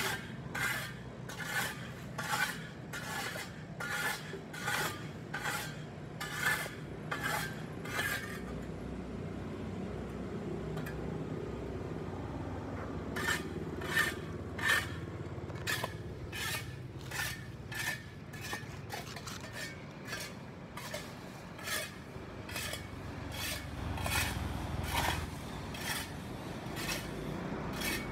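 Hand tool scraping grime off sidewalk pavement in quick, rhythmic strokes, about two a second. The strokes stop for a few seconds about a third of the way in, then start again.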